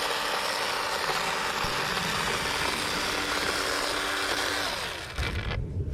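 DeWalt 20V cordless electric chainsaw running at full speed, a steady motor whine over chain noise as it cuts through a branch, stopping about five seconds in.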